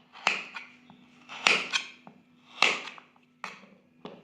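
Knife cutting taro root into small cubes: about six sharp chops, roughly a second apart.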